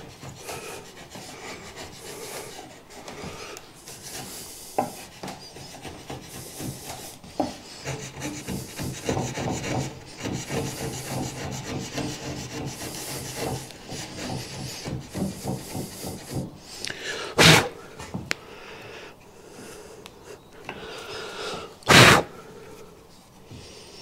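Wood chisel hand-paring the floor of a hinge rebate in a hardwood door-frame jamb: repeated scraping strokes as thin shavings come off, levelling a spot that is still slightly high. Two sharp knocks stand out in the second half.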